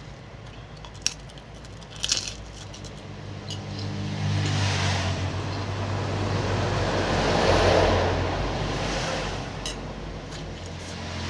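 A motor vehicle passing, its engine hum and road noise swelling to a peak about two-thirds of the way through and then fading. Two sharp clicks come in the first couple of seconds.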